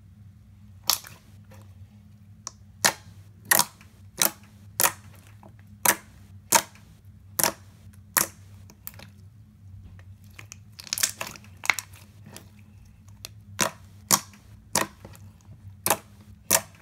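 Clicky slime being poked and squeezed by fingers, giving sharp clicks and pops as trapped air pockets burst. About twenty come at an uneven pace, one or two a second.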